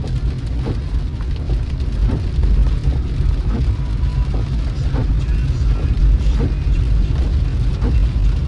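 A car driving: a steady low rumble of engine and road noise, with faint short knocks repeating about every 0.7 seconds.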